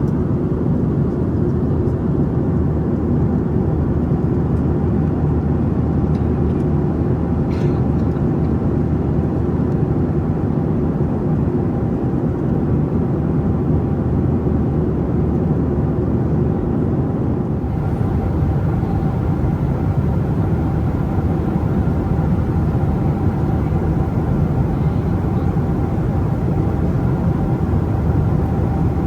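Boeing 737-800 cabin noise in flight: the steady low rumble of the CFM56 engines and the airflow over the fuselage, heard from a window seat over the wing, with faint steady engine tones.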